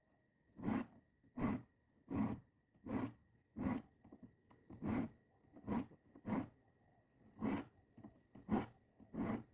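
Diamond file scraping across the teeth of a Gyokucho ryoba Japanese saw, in short, even strokes a little more than one a second: the saw being sharpened.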